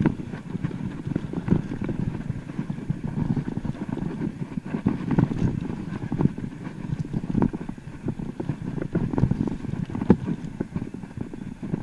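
Mountain bike descending a trail: a continuous rumble of tyres over the ground with many irregular clattering knocks and rattles from the bike as it goes over rough terrain.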